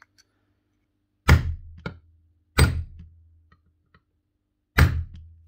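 Hammer blows on a punch, tapping a displaced steel bushing back flush into the metal nose housing of a DeWalt impact driver. There are three sharp metallic strikes, each ringing briefly, with a lighter knock after the first and a longer pause before the last.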